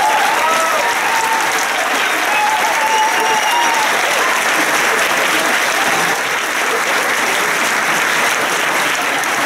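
Audience applauding steadily, with cheering voices over the clapping in the first few seconds.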